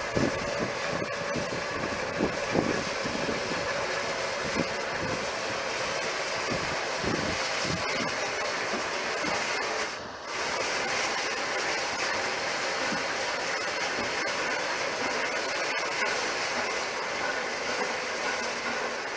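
Peppercorn A1 Pacific steam locomotive 60163 Tornado standing with steam hissing steadily from it, with no exhaust beats; the hiss dips briefly about ten seconds in.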